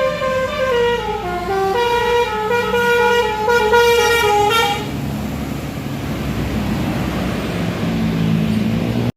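Bus telolet horn, a Basuri multi-tone air horn, playing a stepped melody for about five seconds, followed by the bus's engine running amid road noise.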